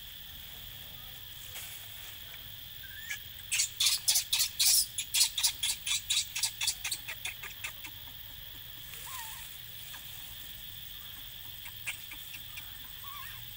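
Newborn macaque crying in a rapid run of short, sharp squeals, about five a second for some four seconds, fading out, with a few faint whimpers later. A steady high insect drone runs underneath.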